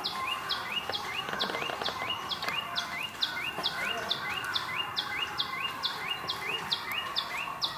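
A bird outside repeats the same short chirp about two and a half times a second without a break. Faint knocks of a knife cutting cooked beef on a board sit underneath.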